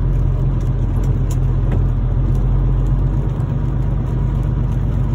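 Semi truck's diesel engine running with a steady low rumble, heard from inside the cab while the truck creeps slowly out of the lot.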